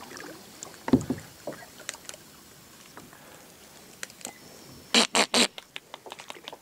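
Kayak handling sounds from a Perception Rambler tandem kayak: a heavy knock about a second in, light drips and clicks of the paddle on water and hull, then a quick run of three or four sharp harsh bursts near the end.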